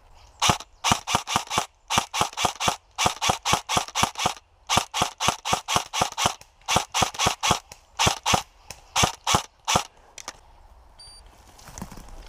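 Airsoft gun shooting sharp clicking shots in quick strings, about four or five a second with brief pauses, stopping about ten seconds in.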